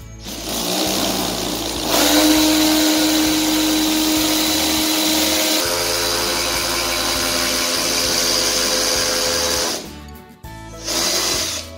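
Cordless drill running as it bores a hole into the top edge of a coffee-table base: a steady motor whine that gets louder about two seconds in. It stops at about ten seconds, then runs again in a short burst near the end.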